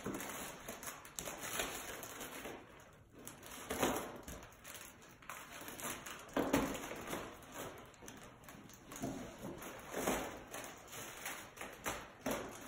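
Balloons being handled: rustling and rubbing of latex and foil balloons in irregular bursts as a twist tie is fastened among them.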